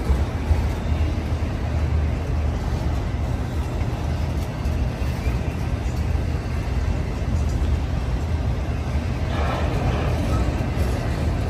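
Union Pacific freight train of autorack cars rolling past at close range: a steady low rumble and clatter of steel wheels on the rails, with a brief sharper, brighter stretch near the end.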